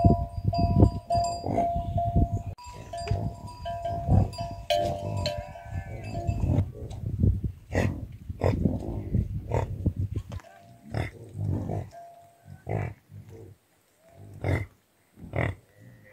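Bells on a herd of yaks clanking and ringing irregularly as the animals move and graze. The sound is dense at first and thins to separate clanks after about ten seconds.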